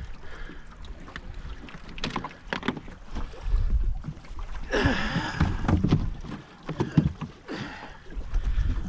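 Knocks and clatter on a small aluminium boat's hull and deck as a freshly caught queenfish and fishing gear are handled, with a louder scuffle about five seconds in and one sharp knock near the end. Wind rumbles on the microphone.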